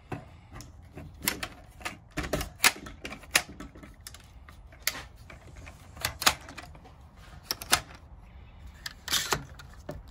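Irregular sharp clicks and knocks, about a dozen, the loudest about two and a half, six and nine seconds in.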